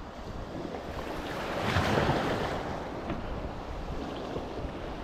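Sea surf washing in: one wave surges up to a peak about two seconds in and falls away, with wind buffeting the microphone.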